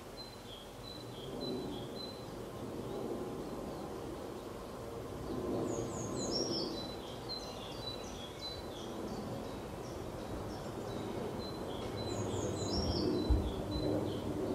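Small songbirds singing: a run of short high chirps near the start, then a phrase of quick falling whistles and chirps about six seconds in, repeated about twelve seconds in. A steady low rumble runs underneath, with a short low thump near the end.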